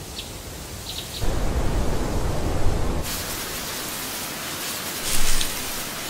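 Rushing, rain-like hiss of noise, like water spray, with a deeper rumble from about a second in and a brief louder surge near the end.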